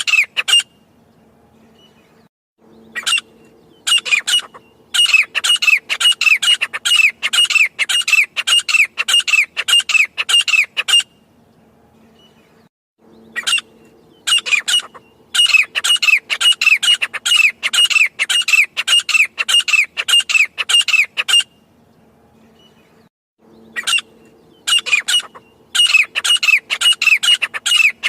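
Grey francolin calling: rapid runs of loud, harsh, repeated notes lasting about eight seconds each, broken by pauses of about two seconds. A faint low hum sits under the calls.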